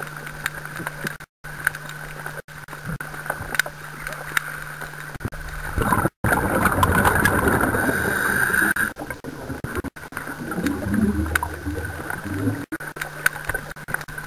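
Underwater recording: a steady hum under scattered clicks. About six seconds in comes a long gurgling rush of scuba exhaust bubbles, and a lower, shorter one follows around ten seconds in.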